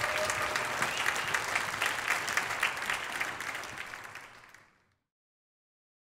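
Audience applauding with dense, steady clapping that fades out over the last second or so and stops about five seconds in.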